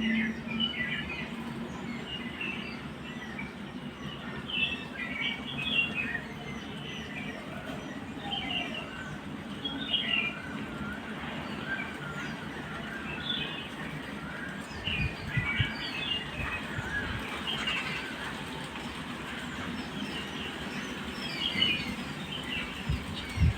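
Several small birds chirping and calling in short, scattered phrases over a steady background hiss, with a few low thumps about fifteen seconds in.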